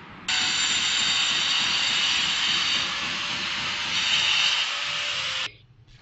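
A loud, steady hiss with faint whistling tones in it, starting suddenly and cutting off abruptly after about five seconds.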